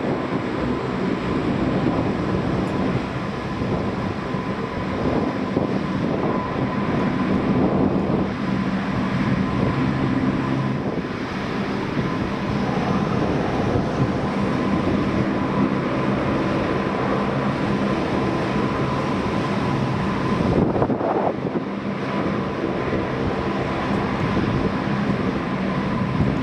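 Four-engine turboprop of the P-3 Orion / CP-140 Aurora type, its propeller engines running steadily with a constant drone and a steady high whine.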